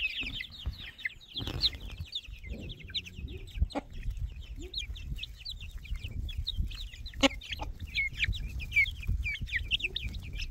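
A flock of young chickens peeping and cheeping constantly as they feed, many short high calls a second with a few lower clucks. A couple of sharp taps stand out, the loudest about seven seconds in.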